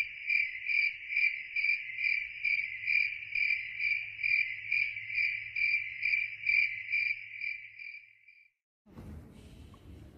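A cricket chirping steadily in an even, high-pitched pulse, about two and a half chirps a second, stopping about eight seconds in; faint low background noise follows.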